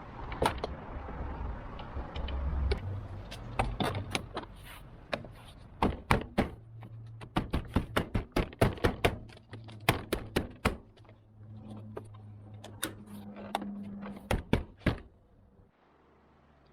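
An irregular run of sharp clicks, taps and knocks, at times several a second, from hand work on a van door as it is being reassembled; it stops about fifteen seconds in.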